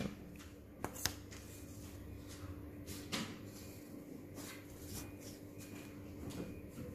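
A plastic ruler being set down and shifted on paper, with a few light taps, the loudest two close together about a second in and another about three seconds in, and soft pencil strokes along the ruler's edge. A faint steady hum sits underneath.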